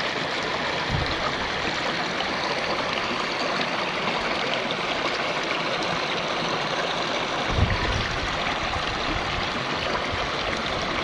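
Shallow river water running steadily, with two dull low thumps, one about a second in and a louder one near eight seconds in.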